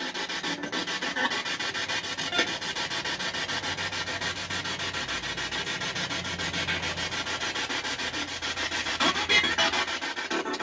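Rapidly chopped radio static from a spirit-box sweep played through a portable speaker, pulsing many times a second, with a brief louder snatch about nine seconds in.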